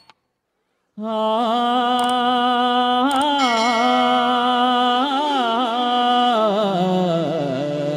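Carnatic-style devotional music: a single melodic line of long, ornamented notes that waver and slide between pitches, with a lower note held beneath. It begins about a second in, after a moment of silence.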